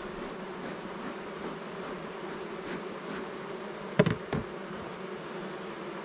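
Honey bees buzzing steadily around an opened hive, stirred up after frames full of bees were dropped to the ground. Two sharp knocks about four seconds in.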